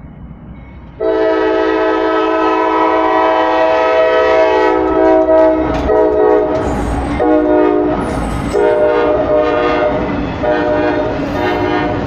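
Norfolk Southern freight locomotive's air horn blaring a multi-note chord that starts abruptly about a second in and is held long, its notes changing a few times as the engineer plays it in a horn show. A low rumble swells in the middle.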